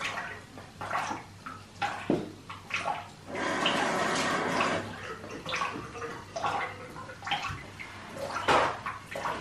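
Bathtub of foamy bath-bomb water draining out through the plughole: irregular water noises, with a steadier rush for about a second and a half a few seconds in.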